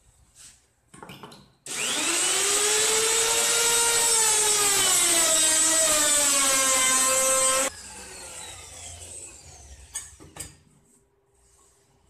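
Compact trim router cutting a circular groove in 15 mm plywood on a circle-cutting jig. The motor starts with a sudden loud whine about two seconds in, its pitch sinking slowly as it cuts. About eight seconds in it is switched off and winds down with a falling whine, followed by a couple of light knocks.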